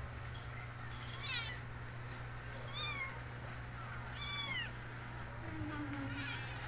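A young kitten, a quarter Siamese, mewing four times in short, high-pitched cries, the first and loudest about a second in.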